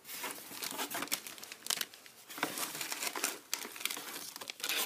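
Clear plastic packaging of paper flower embellishments crinkling as it is handled, in irregular crackles that are loudest near the end.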